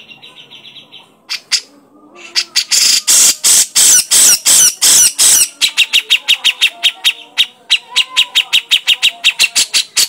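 Grey-cheeked bulbul (cucak jenggot) calling: a quick trill, then a loud stretch of harsh, rasping rapid calls lasting about three seconds, then a fast run of short, sharp repeated notes, about five or six a second.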